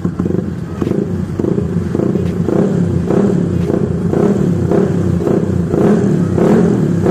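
Yamaha Aerox scooter's modified single-cylinder engine running through a K-Race Samlong aftermarket exhaust, revved in quick repeated throttle blips about twice a second and growing louder. The exhaust note is fairly mellow ("adem").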